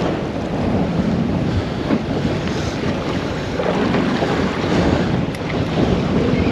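Wind buffeting the microphone, over water washing against a boat's hull.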